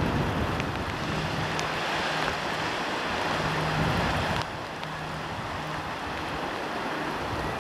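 Wind buffeting the microphone over a rushing noise of sea surf, easing suddenly a little past halfway, with a faint steady low hum underneath.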